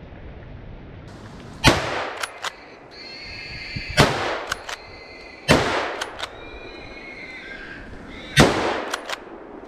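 Four rifle shots from a Merkel RX Helix straight-pull rifle in 7x64, irregularly spaced over several seconds, each with a long echoing tail. About half a second after each shot come two small clicks of the bolt being cycled back and forward.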